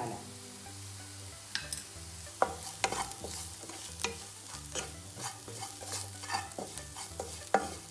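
A spoon stirring onion-and-spice masala frying in oil in a pan, with irregular scrapes and taps against the pan over a faint sizzle.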